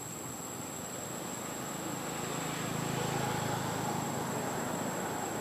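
A distant motor vehicle passing: a low rumble that swells to a peak about halfway through and then eases off. A steady high-pitched insect drone runs underneath.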